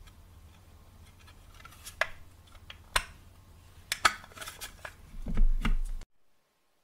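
Hard plastic box handled in the hands: a few sharp clicks of the case and fingers rubbing on the plastic, then a louder low thud as it is set down on a wooden table, after which the sound cuts off abruptly.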